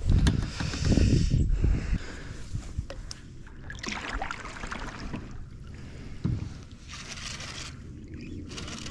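Water sloshing and splashing around a kayak. There is a loud low rumble for the first two seconds, then quieter washes of water sound that come and go every second or two.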